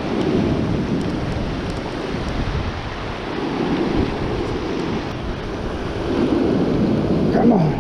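Surf breaking on the shore and wind buffeting the microphone in heavy rain, the wash swelling and easing every few seconds.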